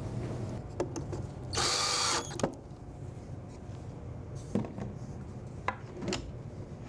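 Cordless drill/driver running for about half a second, driving a screw into a drawer face. A few sharp clicks and knocks follow, the drill being set down on the wooden bench and a drawer sliding open on its metal slides.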